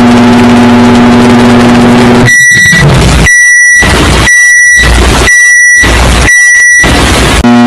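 Microwave oven sounds: the oven's steady running hum, then five of its high beeps about one a second, then the hum again near the end.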